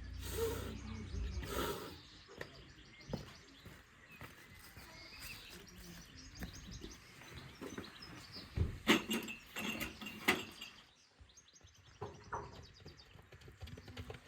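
Birds chirping, with scattered knocks and clatter and a quick run of sharp knocks about nine to ten seconds in.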